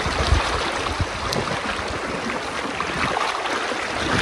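Strong current of a flooded forest stream rushing past in a steady hiss of water, with a couple of low thumps in the first second.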